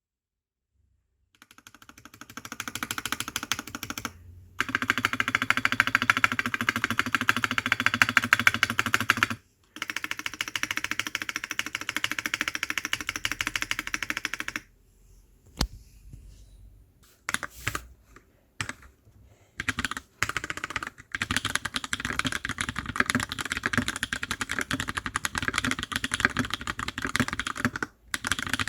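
Fast typing on a TX65 custom mechanical keyboard with PBT keycaps, recorded on a phone's built-in microphone. The typing comes in quick runs of key clacks, broken by a few short pauses and a slower stretch of scattered single keystrokes in the middle before the fast typing resumes.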